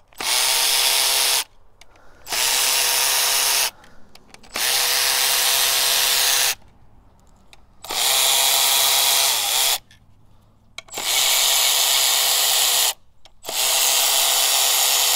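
Milwaukee Fuel cordless ratchet running in six separate bursts of one to two seconds each, one burst per bolt, as it backs out the six 8 mm bolts of the engine's rear main seal. Each burst begins with a brief rise in pitch as the motor spins up, then holds a steady whine.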